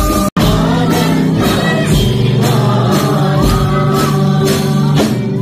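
Christian worship song: singing over instruments with a steady beat of about two strikes a second. The sound cuts out for an instant just after the start.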